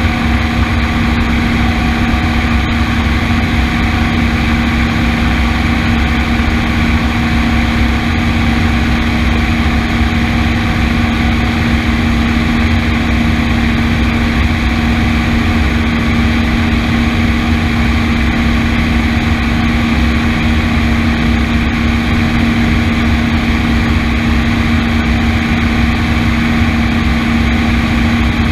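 A steady mechanical drone, like an engine running at constant speed: a low rumble with a constant hum that does not change.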